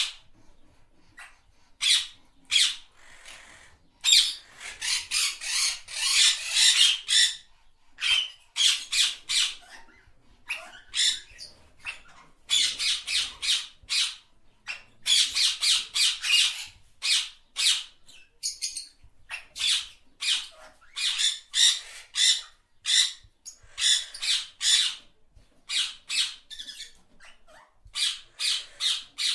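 A bird calling with short, rasping squawks, several a second in runs separated by brief pauses.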